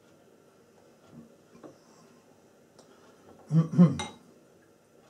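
Paintbrush rinsed in a glass water bowl, clinking and knocking against the glass three times in quick succession about three and a half seconds in, after a couple of faint taps.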